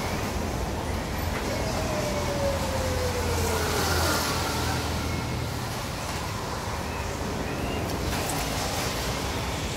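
Road traffic over a steady low hum, with a vehicle passing on the wet road about three to four seconds in.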